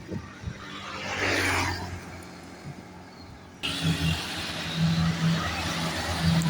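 Bus engines running at a terminal, with a brief rush of noise like a hiss about a second in. A little past halfway the sound jumps abruptly louder to a diesel engine idling close by with a steady low hum.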